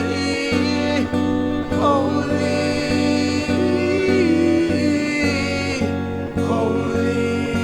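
Slow worship music: a sustained pitched backing with a steady pulse of plucked-string notes, and a voice singing long gliding lines over it.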